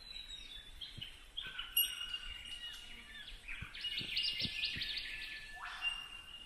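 Several birds calling at once in eucalyptus bush: short whistled notes, pings and chirpy trills overlapping, with a few faint low thuds underneath.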